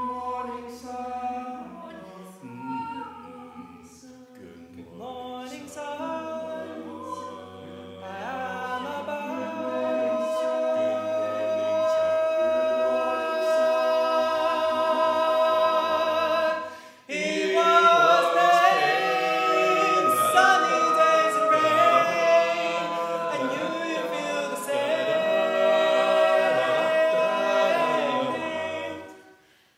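A cappella vocal group singing sustained chords in close harmony, with no instruments. It starts sparse and quiet, swells fuller about a third of the way in, then after a brief drop comes back in suddenly louder and denser, before fading out at the end.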